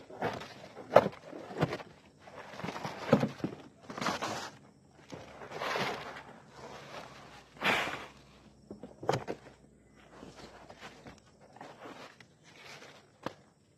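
Irregular knocks and scrapes of manual roof tear-off work on a plywood roof deck: old roofing being pried and scraped loose by hand. There are several sharp knocks in the first few seconds and longer scraping sounds about four, six and eight seconds in, then only faint, sparse rustles.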